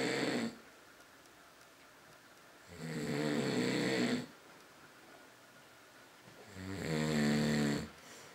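A man snoring in his sleep. One snore ends just after the start, followed by two long snores about four seconds apart, each lasting about a second and a half, with quiet breaths between.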